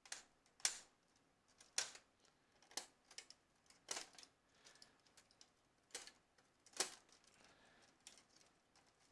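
Wire connectors and cables being tugged out of a laser printer's circuit boards: irregular sharp plastic clicks and snaps, about one a second, with fainter ticks between.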